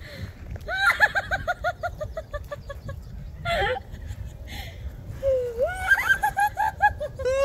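A bird calling in runs of short, clear notes repeated quickly, about nine a second: one run near the start, another near the end, with a single swooping note between them.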